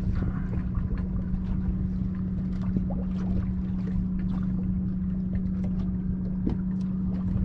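Steady electric hum of a Minn Kota Terrova trolling motor holding the boat in place on spot-lock, with wind rumbling on the microphone and a few faint ticks.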